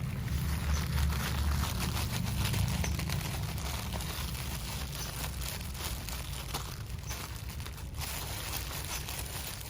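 Parcel packaging being handled and unwrapped: dense crinkling and rustling with small tearing sounds, over a low handling rumble that is strongest in the first few seconds.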